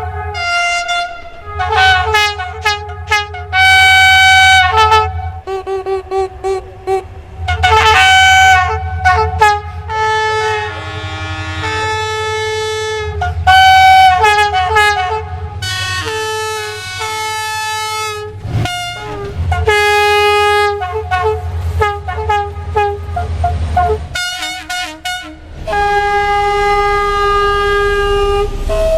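Train horns blowing one after another in quick edited succession, mixing short toots with longer two-tone blasts from different trains. Many of the blasts sit over the low rumble of the trains running.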